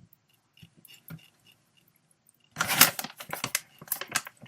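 Crunchy dark cocoa cookie snack being bitten and chewed close to the microphone: a few faint clicks at first, then from a little past halfway a dense run of crisp crunches.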